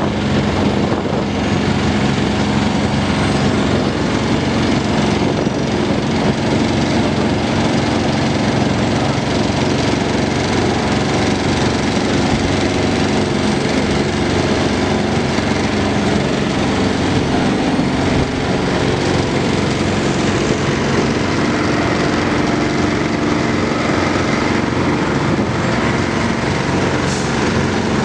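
Road-construction machinery engine running steadily at a constant speed.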